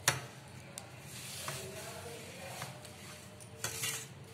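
A hand mixing and rubbing maida flour with water on a steel plate, giving a soft scraping and rustling of flour on metal. A sharp tap comes just after the start, and a short cluster of clicks and scrapes comes a little before the end.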